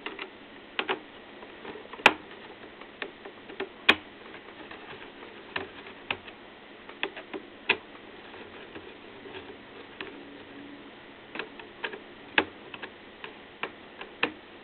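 Irregular small clicks and taps from working screws out of a laptop's plastic case with a small screwdriver and handling its parts, with a couple of sharper clicks about two and four seconds in.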